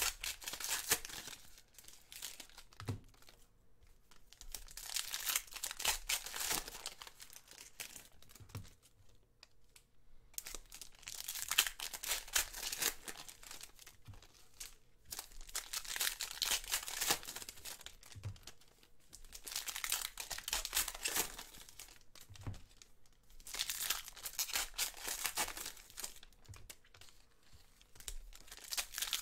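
Foil wrappers of Panini Contenders basketball card packs crinkling and tearing as the packs are ripped open by hand. The crinkling comes in bursts about every four seconds, with quieter gaps while the cards are handled.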